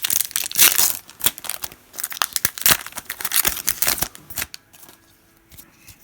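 A trading card pack's wrapper being torn open and crinkled, a dense rapid crackle that stops about four and a half seconds in.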